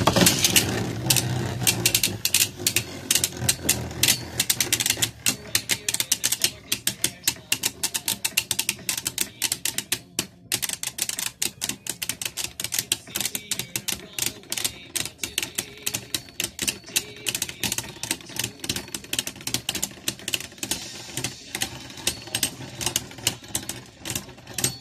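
Two Beyblade Burst spinning tops, Lucifer the End and Helios Volcano, launched into a plastic stadium and battling: a sudden launch at the start, then a whirring spin with rapid clattering clicks as they collide, the hits continuing throughout and growing somewhat quieter.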